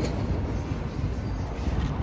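Low rumble of a Metrolink bilevel commuter train fading as it moves away after passing.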